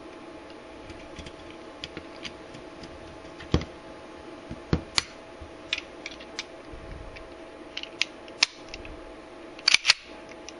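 Metal clicks and snaps of a 1911 pistol's parts being handled and fitted back together, with the sharpest snaps around the middle and a quick pair near the end, over a steady background hum.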